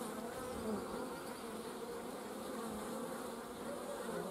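Steady buzzing hum of many honeybees flying in and out of their hives, a sign that the colonies are alive and active.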